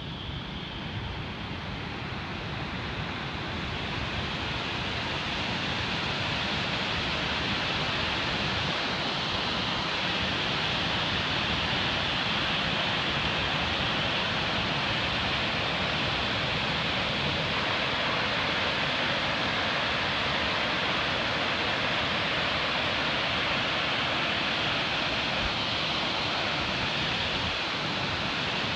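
Nugget Falls, a large waterfall, rushing steadily as a continuous even noise, growing louder over the first few seconds and then holding steady.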